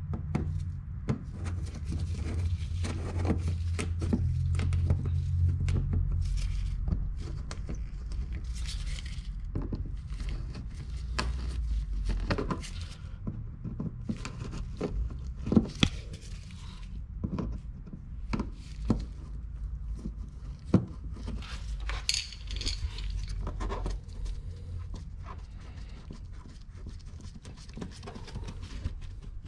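Plastic push clips being pried out of a 2015 Kia Optima's front wheel-well liner with a small screwdriver: scattered clicks, taps and scrapes of plastic and metal over a steady low hum.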